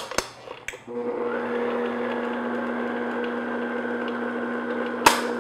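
Clicks as the stand mixer's head is lowered onto the bowl, then about a second in its motor starts and runs steadily at low speed, the beater mixing flour into cake batter. A single sharp click near the end.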